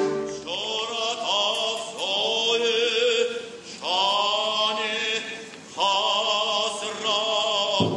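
Recorded operatic singing from a Soviet-era Central Asian opera: a voice sings long phrases with heavy vibrato, with short breaks about four and six seconds in.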